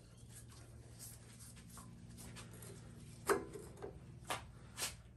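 Screwdriver working the screws on the air filter cover of a Tecumseh four-stroke engine, with faint scraping and a few short light clicks in the second half over a low steady hum.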